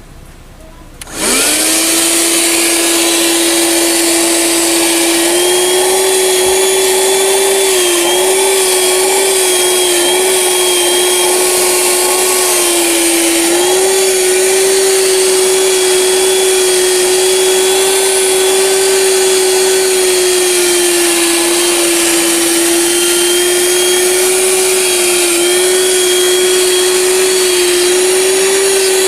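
Bolde Oto Hoover 12 V, 120 W handheld car vacuum cleaner switched on about a second in. It spins up quickly and runs with a steady whine and a rushing hiss of air, its pitch wavering slightly now and then.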